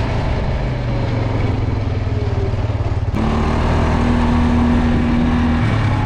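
A motor vehicle's engine running steadily with a low hum. The sound changes abruptly about three seconds in, taking on an added steady higher tone.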